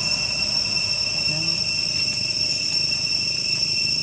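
Insects droning with a steady, unbroken high-pitched tone.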